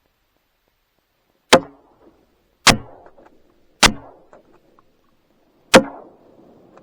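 Four shotgun shots at incoming waterfowl: three about a second apart, then a fourth about two seconds later, each a sharp, loud crack with a short tail.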